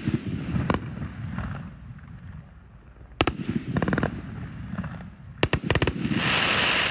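A 2-inch, 48-shot consumer fireworks cake firing: sharp reports of shells launching and bursting, with a rapid cluster of bangs about three seconds in and another a little before the end, then a loud hiss.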